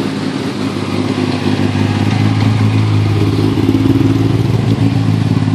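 Rally race car engines running at low, steady revs as the cars roll slowly past one after another, getting louder about halfway through as the second car comes by.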